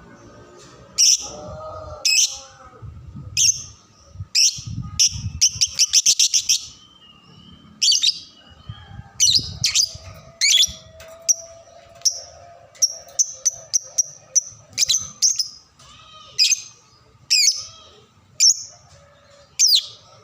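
Lovebird chirping: sharp, high-pitched chirps repeated every second or so, with a quick rattling trill of rapid notes about six seconds in.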